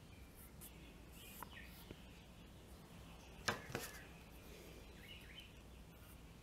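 Near silence: quiet room tone with a few faint bird chirps, and two short clicks about a quarter second apart roughly three and a half seconds in.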